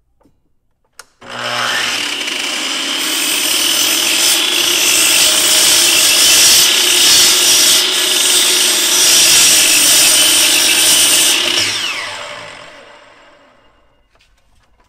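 Milwaukee miter saw, tilted to a 22.5° bevel: its motor starts about a second in and whines up to speed, and the spinning blade cuts through a 2x6 block of wood. Near the end the trigger is released and the blade winds down with a falling whine.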